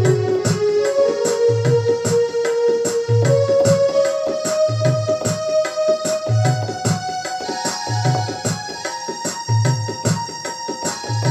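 Electronic keyboard playing a slow melody of held notes over a drum rhythm, with a low drum beat about every second and a half and lighter tabla-like strokes between the beats.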